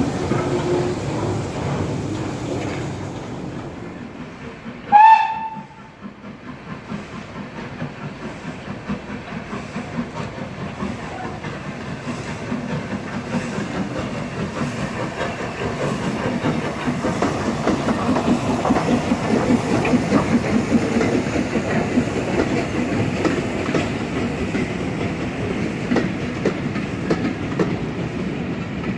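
A short, loud steam locomotive whistle about five seconds in. Then Southern Railway Schools class 4-4-0 No. 926 Repton works a train past, its exhaust beats growing louder as it approaches. The passing coaches follow, rumbling and clicking over the rail joints.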